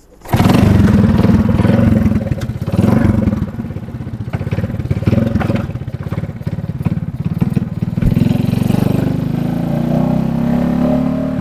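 Motorcycle engine starting up suddenly about a third of a second in, then running loudly, its revs rising and falling.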